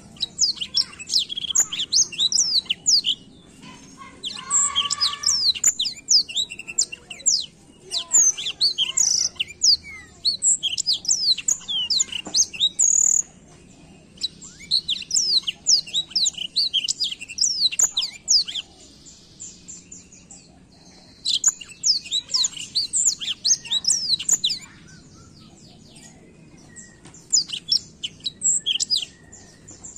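Black-throated canary in full song: fast, rolling runs of high chirps and trills in bursts of a few seconds, with short pauses between them.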